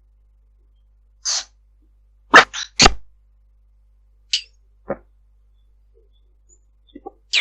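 A run of short, sharp noise bursts with dead silence between them over a Viber call: one at about a second in, a loud cluster of three around two and a half seconds, single bursts near four and a half and five seconds, and more near the end.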